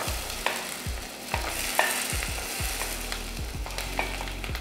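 Hot fried cashews and raisins sizzling as they go into sago payasam in a steel pot, while a steel ladle stirs them in with light knocks against the pot.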